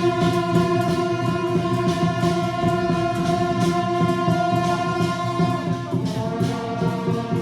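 Festival procession music: a melody in long held notes over frequent percussion crashes, the melody moving to a new note about six seconds in.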